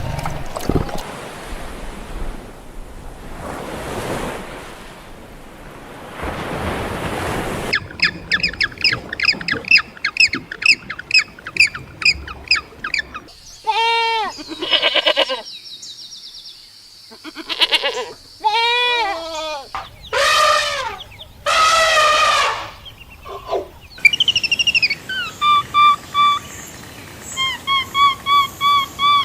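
A run of different animal sounds. An even noisy stretch comes first, then rapid repeated bird chirping, then several loud pitched calls that bend up and down, and near the end short repeated chirps.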